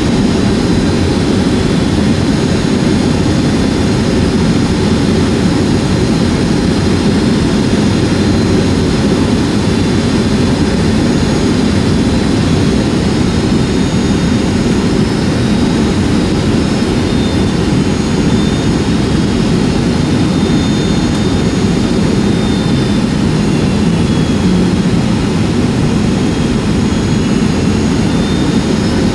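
Steady roar of a Boeing 757-200 heard from inside the passenger cabin, jet engines and airflow, with faint steady high-pitched whines above it.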